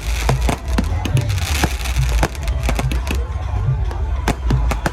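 Fireworks popping and banging in quick, irregular bursts over loud music with a heavy bass beat.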